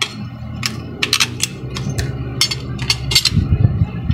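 Sharp metal clicks and clinks, about a dozen, from an aluminium plate, a screw and a nut being handled against a plastic bottle cap. A steady low hum runs underneath, and a louder low rumble comes in near the end.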